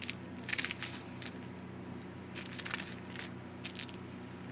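A crust of ice being broken up, crunching and cracking in several short bursts.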